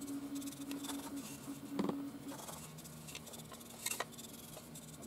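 Faint scratchy rustle of a dry brush scrubbing over a 3D-printed terrain piece, over a steady low hum, with two light clicks of the piece being handled about two and four seconds in.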